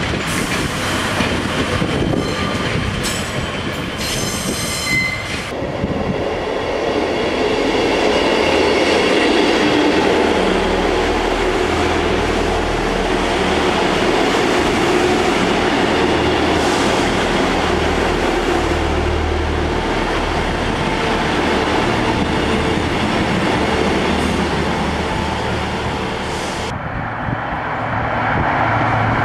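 Trains moving through a railway station. A Northern Class 142 Pacer's wheels squeal on the track for the first few seconds. Then another passenger train runs past with a steady low rumble, and the sound changes near the end.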